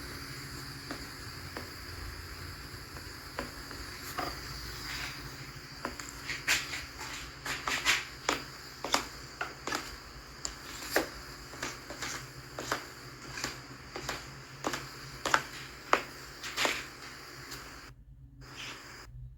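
Irregular light clicks and taps, one or two a second, from a few seconds in until shortly before the end, over a steady thin high-pitched hum.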